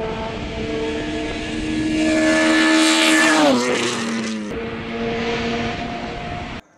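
Race car's engine at high revs coming up the road and passing close by, loudest as it goes past, with its pitch dropping as it passes and then running on as it pulls away. The sound cuts off abruptly near the end.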